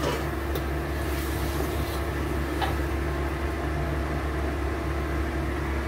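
A steady low mechanical hum, with two or three faint clicks of a metal ladle against the steel wok of broth.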